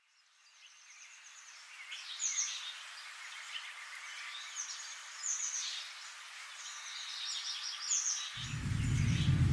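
Songbirds chirping and calling over a steady outdoor hiss, fading in from silence at the start. A deep, low music bed comes in about a second before the end.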